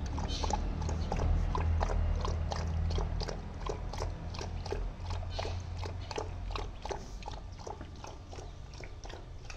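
Puppy lapping water from a plastic bucket: a steady run of quick wet laps, about three a second.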